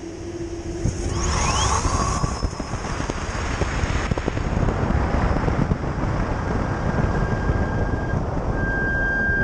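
Electric race car's Tesla drive motor accelerating hard from standstill: its whine rises steeply in pitch over about a second and a half, then holds high over a heavy rush of wind and road noise.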